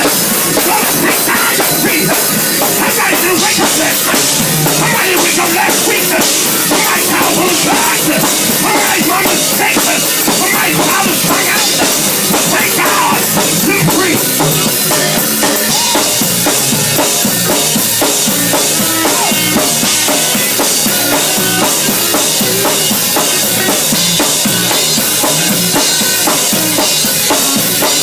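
Live gospel band music with the drum kit loudest: cymbals, snare and bass drum keeping a steady beat.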